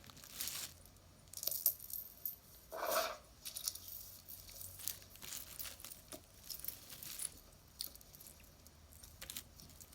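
Costume jewelry being handled: small metal and bead pieces clinking and rattling against each other, with light rustling in between and one short, louder sound about three seconds in.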